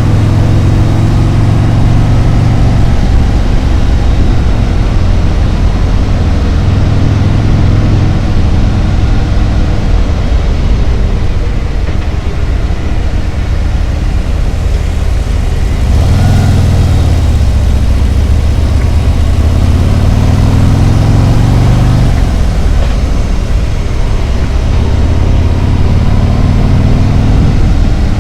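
Harley-Davidson Road Glide's V-twin engine running under way. Its note climbs steadily from about halfway through for several seconds, then drops back.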